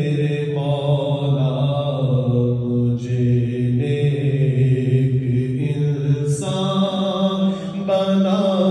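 A man chanting an Urdu munajat (devotional supplication) into a microphone, in long held melodic notes.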